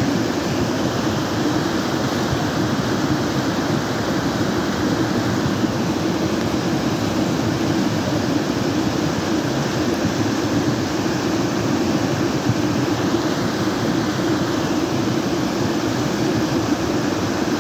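A muddy flash-flood torrent rushing down a river bed: a loud, steady, unbroken rushing of water.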